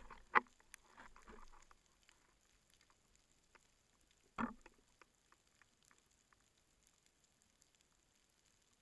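Underwater ambience heard through a camera housing: near-quiet water with scattered faint clicks and crackles, a sharp click shortly after the start and a short knock about four and a half seconds in.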